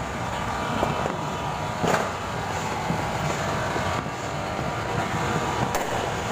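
Distant fireworks going off with a few sharp bangs, the loudest about two seconds in, over a steady outdoor city din.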